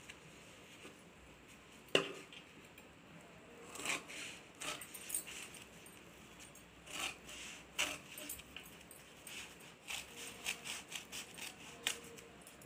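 Tailoring scissors cutting through quilted fabric on a table: irregular crisp snips and blade clicks, with one sharper click about two seconds in.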